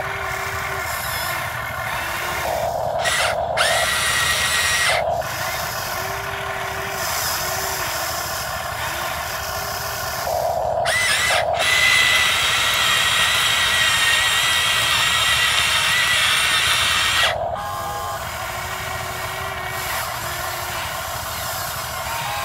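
Huina 580 RC excavator's electric motors whining steadily as the arm and bucket work in the mud. The whine grows louder and higher briefly about three seconds in, and again from about ten to seventeen seconds.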